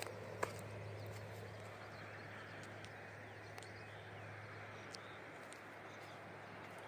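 Faint, steady outdoor background noise with a low hum, broken by a sharp click about half a second in and a few small ticks.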